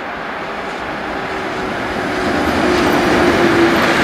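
SBB Re 620 (Re 6/6) six-axle electric locomotive hauling a freight train past at close range: the rumble of wheels on rail grows steadily louder as it approaches, with a steady hum rising over the last couple of seconds, and the freight wagons then roll by.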